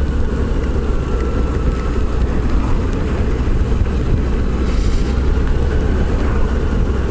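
Steady rush of wind on the microphone together with the drone of a Yamaha FZS1000 Fazer being ridden along the road.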